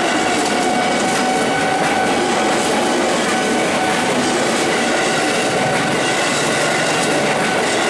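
KRL Commuter Line electric multiple unit passing close by: a steady loud rush and clatter of steel wheels on the rails, with a steady high whine running through it.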